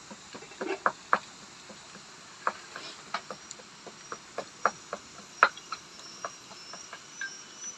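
Irregular sharp clicks and taps, a dozen or more spread unevenly, over a faint steady high-pitched drone of insects.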